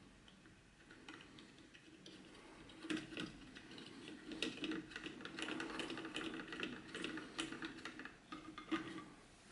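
Hard 3D-printed plastic parts clicking and scraping together as a toy truck's cab is pressed and worked onto its chassis by hand. Only a few faint clicks at first, then a quick run of clicks from about three seconds in until near the end.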